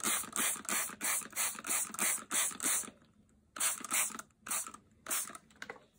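Plastic trigger spray bottle squirting water onto a paper towel in quick repeated sprays, about three a second, with a short pause about halfway before a few more sprays.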